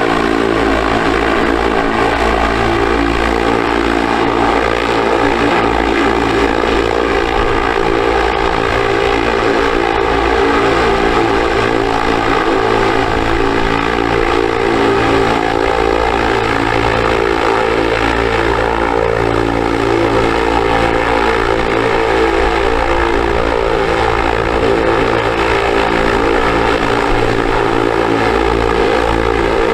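Small DC motor spinning a toy propeller: a steady, even motor whir with a constant pitch.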